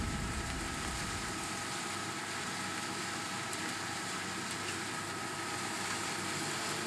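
Harvesting machinery running steadily: an even mechanical hiss with a constant whine.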